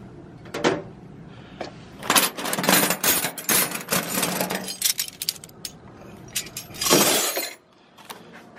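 Loose steel wrenches clinking and clattering against each other as they are picked up and set down: a sharp clink about half a second in, a dense run of clatter in the middle, and another burst of clattering near the end.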